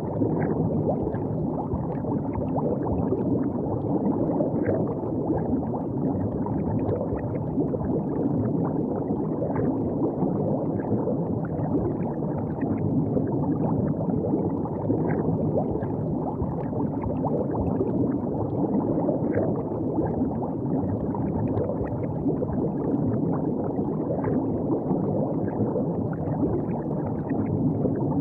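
River water running steadily at the bank: a low, even rush with faint short ticks of moving water throughout.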